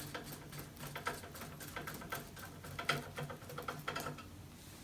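Hand screwdriver turning a screw into the back of a computer monitor to fix a monitor mount plate: a run of small, irregular clicks and scratchy ticks as the screw is driven toward flush, dying away near the end.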